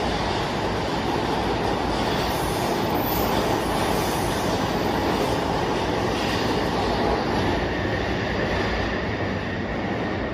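JR East E235-1000 series electric commuter train departing and running past: a steady rumble of wheels on rail and traction motors. It eases off slightly near the end as the last cars clear the platform.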